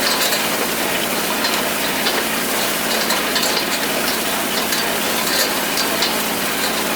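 Kubota tractor's diesel engine running steadily under a hay tedder's clattering rotors, with a constant stream of irregular clicks and rattles as the tines spread the hay.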